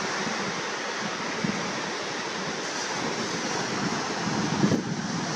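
Gulf of Mexico surf breaking and washing on a sand beach, a steady rush, with wind buffeting the microphone in low gusts near the end.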